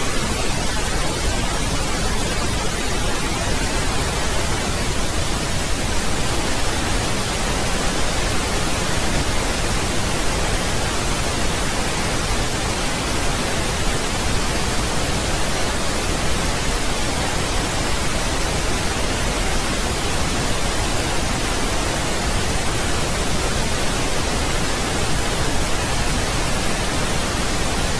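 Steady pink noise: an even, unchanging hiss across all pitches.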